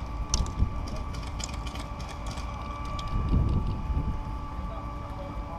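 A steady mechanical hum with a few sharp clicks in the first second and a low rumble swelling up around the middle.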